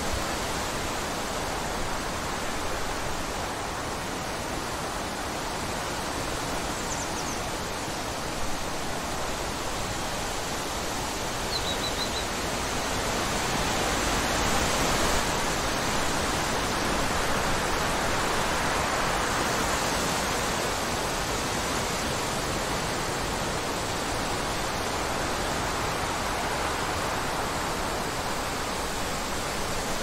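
Wind blowing through woodland trees and grass, a steady rush that swells in a gust around the middle. Two brief, faint bird chirps come through, about seven and about twelve seconds in.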